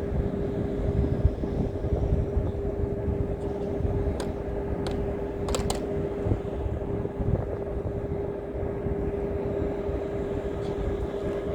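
A steady motor hum holding one pitch over a low rumble, with a few sharp clicks about four to six seconds in.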